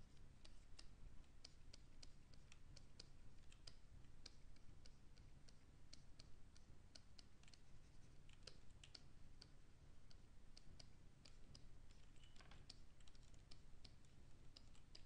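Near silence with faint, irregular clicking, several clicks a second, from hands working a computer's input devices.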